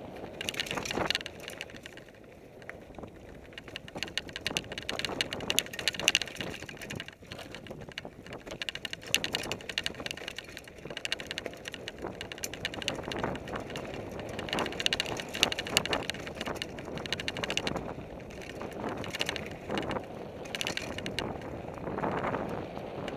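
A Fuji Thrill LTX mountain bike running fast downhill over dirt singletrack: tyres on the dirt, with irregular rattles and knocks as it goes over bumps.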